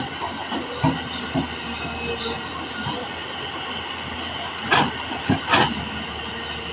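Tata Hitachi FX220LC excavator running steadily, its engine and hydraulics giving a continuous mechanical hum with a whine. Sharp metallic knocks cut through it, a few light ones about a second in and the loudest ones a little under five seconds in and again half a second later.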